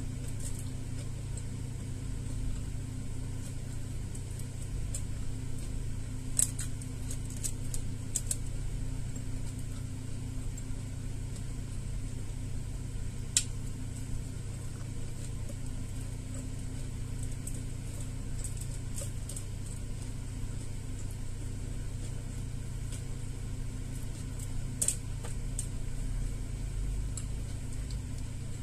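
A steady low mechanical hum, with a few sharp clicks and smacks from hand-eating and chewing scattered over it.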